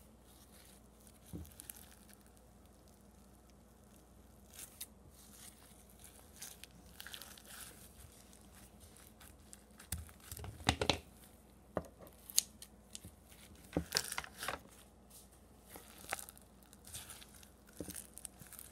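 Foam slime packed with small polystyrene beads being squeezed, stretched and pulled apart by hand, giving faint, irregular crackles and tearing sounds, with louder clusters about halfway through.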